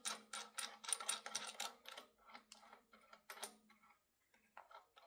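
Steel flange nuts and washers being threaded by hand onto the hold-down studs of a machine vise: light, irregular metallic clicks and ticks that thin out after about three and a half seconds.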